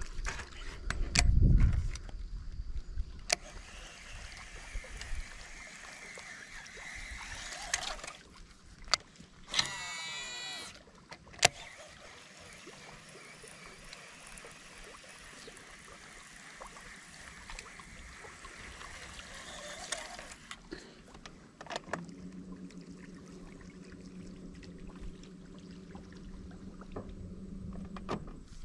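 Fishing tackle being handled in a small boat: a low thump about a second in, scattered clicks, and about ten seconds in a short whirring from a baitcasting reel's spinning spool as a lure is cast. A steady low hum sets in over the last several seconds.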